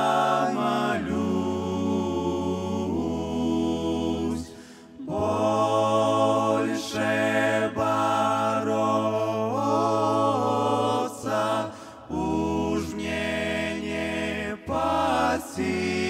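Male vocal ensemble of five singing a slow Russian hymn a cappella in close harmony, holding long chords over a sustained low bass part. Brief breaks for breath come about four to five seconds in and again around twelve seconds.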